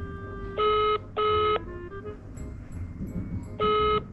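Telephone ringback tone heard through a Nokia flip phone's speaker while a call rings unanswered. It comes as a double ring, two short tone bursts close together, then a pause of about two seconds, and this happens twice.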